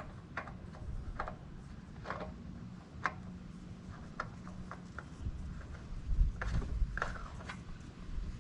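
Scattered light clicks and taps of a new oil filter being spun by hand onto the mower engine's filter mount, with some rubbing.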